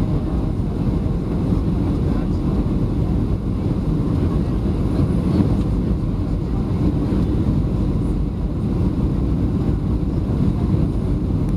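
Steady low rumble inside the cabin of a Boeing 737-700 on its landing approach: engine and airflow noise from its CFM56-7B turbofans and the airframe, even throughout.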